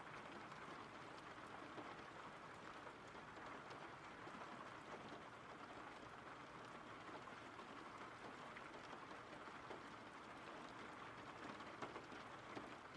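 Faint, steady rain: an even hiss of falling rain with scattered light drops.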